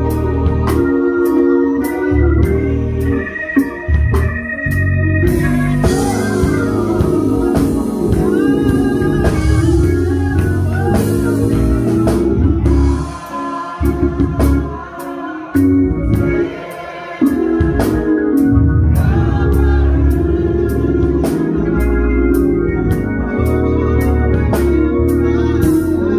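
Two-manual Hammond-style church organ played in gospel style: full chords over a heavy bass, with many short sharp clicks. The chords break off briefly a few times between about 13 and 17 seconds in.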